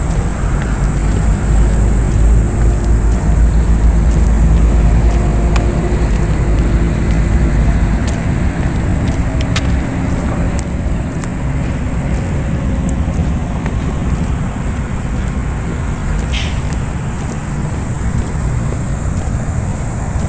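Low outdoor rumble, heaviest for the first eight seconds and then lighter, with a thin steady high-pitched tone and a few faint clicks.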